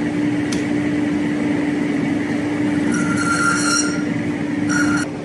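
A metal lathe runs on automatic feed while facing a flange, with a steady hum from its drive. The tool bit cutting the flange face gives a high-pitched squeal about three seconds in and again briefly near the end. The hum drops away just after five seconds.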